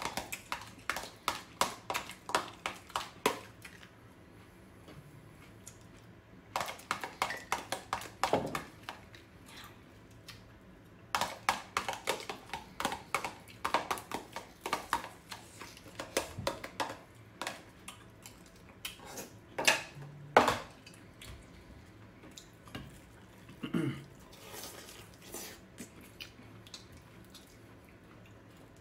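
Clicking and scraping of a utensil against a clear plastic food tub as salad is scooped out of it onto a plate, in runs of quick clicks a few seconds apart.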